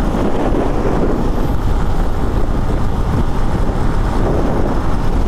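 Motorcycle running at a steady road speed, with a constant rush of wind and road noise over the microphone.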